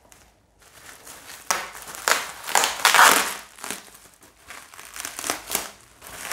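Plastic bubble wrap crinkling and crackling as it is handled and pulled away. It comes in a run of rustling bursts starting about a second and a half in, loudest around three seconds, with a shorter flurry near the end.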